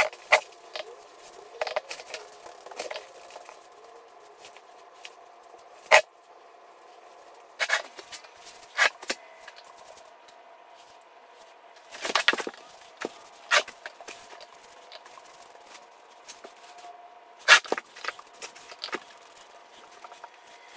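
Hand painting of wooden baseboard trim with a paintbrush and a paint can: scattered sharp clicks and knocks from the brush and can, about a dozen spread unevenly, over a faint steady hum.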